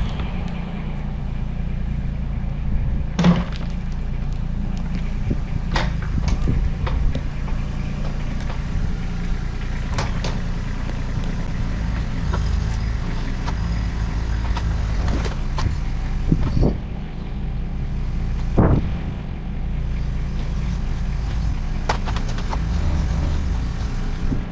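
Mini excavator's diesel engine running steadily under load as it digs and moves earth, with several sharp knocks along the way.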